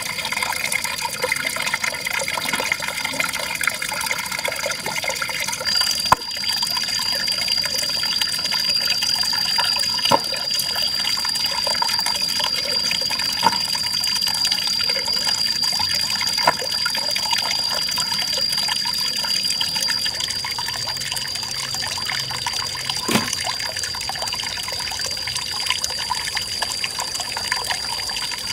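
Water running and splashing steadily, with a few sharp knocks and a steady high thin tone behind it.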